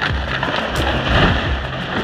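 Background music with steady low held notes, over a loud rushing, crackling noise of a big felled cedar tree falling and crashing through branches.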